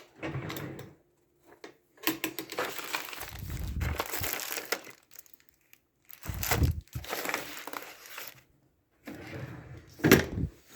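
Rummaging through a storage box of files and papers: rustling and crinkling of paper and plastic, with a few thumps as things are moved about.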